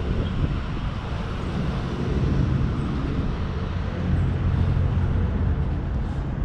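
Ottobock B500 electric wheelchair driving along a tarmac path: steady hum of its drive motors over the rumble of its tyres rolling.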